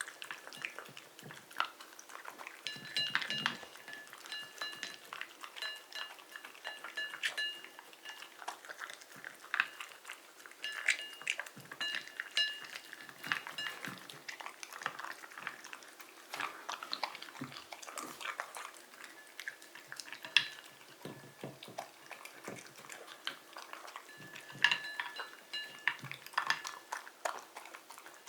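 Shiba Inu dog thrashing and swinging a toy about: rapid, irregular clattering knocks, with spells of a high ringing jingle.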